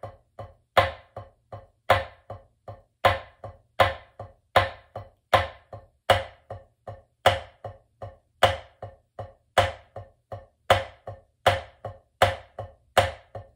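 Drumsticks striking a drum one hand at a time in a single-hand triplets-and-twos drumline exercise. Each loud accent stroke is followed by one or two soft low taps, with about one accent a second.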